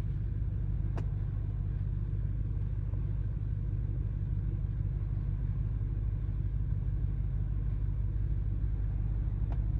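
Steady low rumble from a 2023 Audi RS6, with two sharp knocks, one about a second in and one near the end: the annoying knock the car makes.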